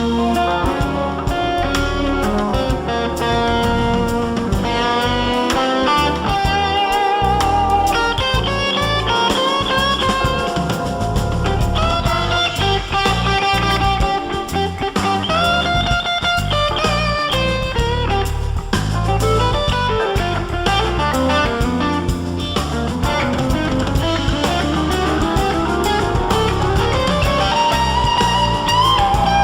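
Background music: electric guitar melody over bass and a drum kit.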